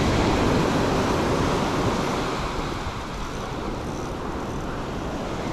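Small surf waves breaking and washing up a sandy beach, with wind buffeting the microphone; the wash is a little louder over the first two seconds, then eases.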